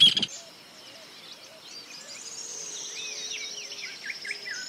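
Birdsong. A loud, rapid series of calls cuts off abruptly just after the start, then several birds chirp and whistle softly, with a long, thin, high trill that slowly falls in pitch through the second half.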